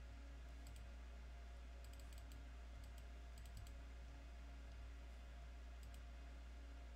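Faint computer mouse clicks, several in quick pairs or triplets, over a low steady hum.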